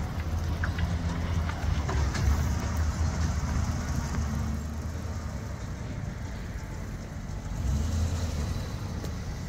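Chevrolet Silverado 4x4 pickup's engine running as the truck drives slowly, towing a loaded flatbed trailer. A steady low rumble that swells early on, eases in the middle and rises again near the end as the truck comes closer.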